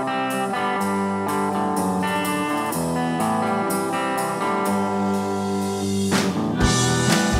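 Live blues-rock band playing: guitar and bass over a steady, evenly spaced beat. About six seconds in, a cymbal crash and deep kick-drum hits come in.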